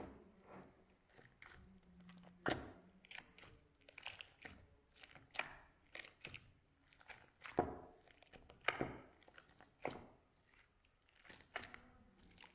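Slime being squished and pressed by hand, giving irregular sticky pops and clicks a few times a second.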